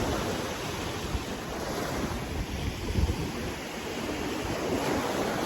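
Sea waves washing onto a sandy beach, with wind buffeting the microphone in low rumbling gusts.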